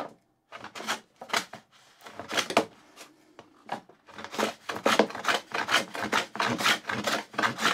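Moving fillister plane cutting a rebate along a board's edge: a run of short scraping plane strokes, spaced out at first and quickening to about four a second in the second half.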